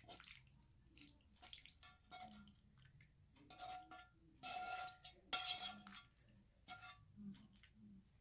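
Metal tongs scraping and clinking against a frying pan and a ceramic plate while pasta is served out, in scattered light clicks with a brief ring. Two louder scrapes come about four and a half and five and a half seconds in.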